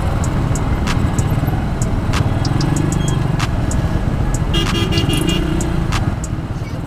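Motorcycle running through road traffic, a steady low engine rumble with road and wind noise. A vehicle horn sounds briefly about four and a half seconds in.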